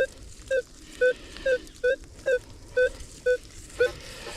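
Minelab Manticore metal detector beeping as the coil is swept back and forth over a buried target: short, fairly low tones repeating about twice a second. The detectorist reads this low, repeating response as possibly a shotgun shell, though the signal looks odd to him.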